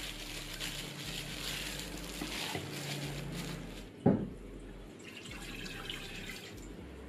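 Plastic glove rustling as a hand rubs marinade into raw chicken. About four seconds in comes a sharp knock, then water pours from a glass bowl into a stainless steel pot.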